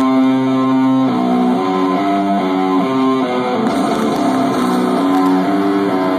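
Live metal band's electric guitar playing a melodic opening line, sustained notes changing about every half second, with no clear drum beat.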